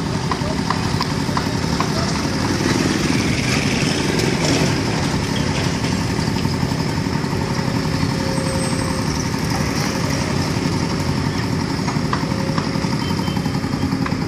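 Steady engine noise of motor vehicles and machinery running, with a few light clicks in the first couple of seconds.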